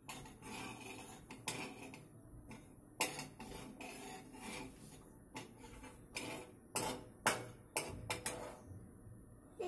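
A metal spoon stirs and scrapes inside a stainless steel kadai, knocking and clinking irregularly against the pan. About seven seconds in comes a quicker run of louder taps.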